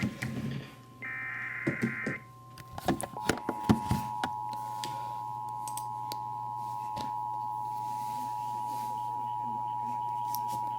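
Emergency Alert System activation: a burst of SAME header data, a harsh buzzy warble about a second long, then over a steady single tone the two-tone EAS attention signal starts about three seconds in and holds to the end. A few clicks sound around three to four seconds in.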